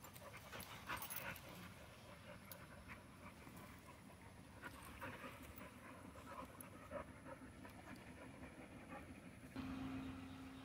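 Dogs panting faintly, with small scattered scuffling sounds. Near the end a steady low hum starts suddenly.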